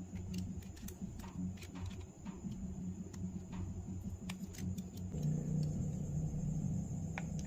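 Light scattered clicks and taps of small parts being handled during a phone repair, over a low steady hum that grows louder about five seconds in.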